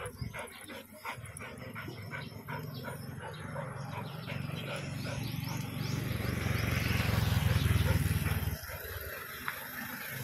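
Golden retriever on a leash moving and nosing through undergrowth. A low rumble builds, loudest about eight seconds in, then cuts off suddenly.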